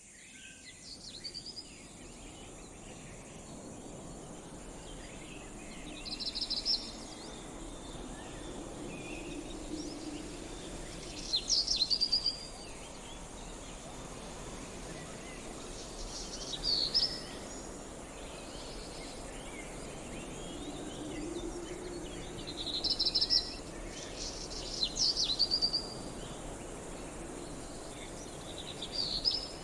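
Birds calling outdoors: about six short, high-pitched calls come a few seconds apart over a steady hiss of insects.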